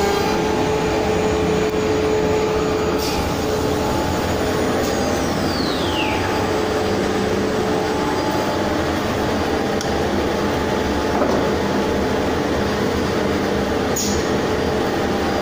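Weeke Venture 113M CNC machining center running with a loud, steady machine noise and a steady hum. About five seconds in, a whine falls in pitch as the router spindle winds down at the end of the cut. Two sharp clicks come about three seconds in and near the end.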